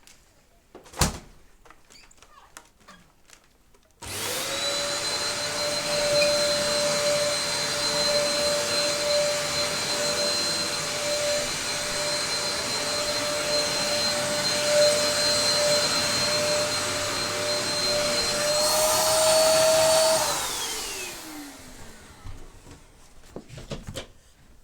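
A sharp click about a second in, then a Dyson DC03 upright vacuum cleaner is switched on and runs steadily with a high whine. Near the end its pitch rises slightly and it grows hissier, then it is switched off and the motor winds down in a falling whine.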